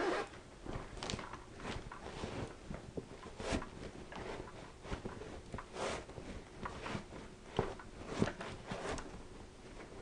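Faint, irregular rustling and crackling with scattered light clicks, a few soft handling noises spaced unevenly.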